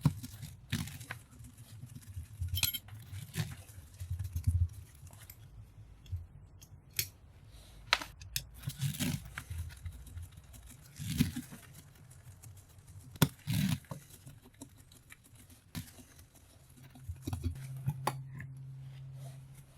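Tools working screws out of a brass valve: scattered clicks, scrapes and small metallic clinks of metal parts being handled. A steady low hum sets in near the end.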